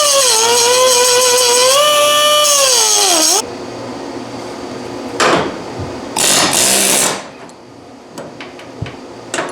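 Power grinder grinding the staked ends off a steel door hinge pin. Its high whine and hiss dip in pitch as it bears on the metal, then wind down after about three seconds. Two shorter bursts of grinding follow.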